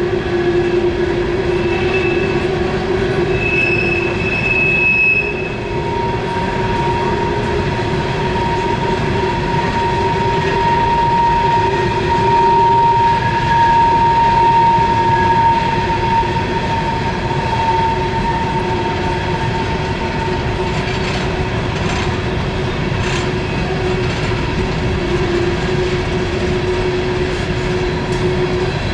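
Norfolk Southern coal train's hopper cars rolling around a tight curve, their wheels screeching against the rails in several long held tones over the rumble of the wheels.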